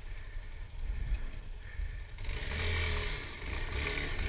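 Motorcycle engine running at low speed on a muddy trail, getting louder and fuller about two seconds in as the throttle is opened.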